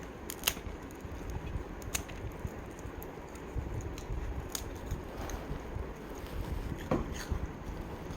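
Dachshund crunching crisp fried chips: a handful of sharp crunches at irregular intervals, over a steady low rumble.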